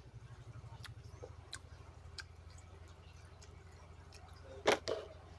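Faint eating sounds, soft mouth clicks and chewing, over a low steady hum, with two louder knocks close together near the end.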